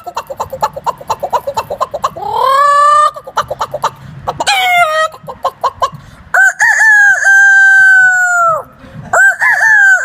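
Rooster-style clucking, a quick run of about eight clucks a second, then two long cock-a-doodle-doo crows, each held for about two seconds.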